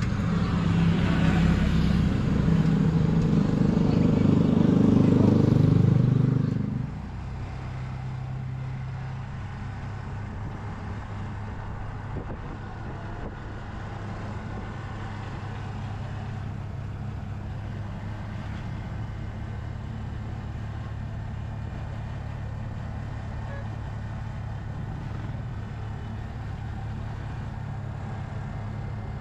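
Motor vehicle engine running. It is loud for about the first seven seconds, then drops off sharply to a quieter, steady hum.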